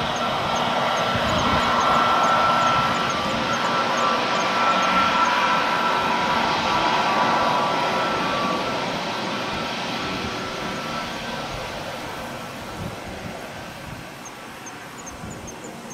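Airbus A321neo's twin Pratt & Whitney PW1100G geared turbofans running at taxi power: a steady jet whine and hiss. It is loudest early on and fades over the second half as the airliner taxis past.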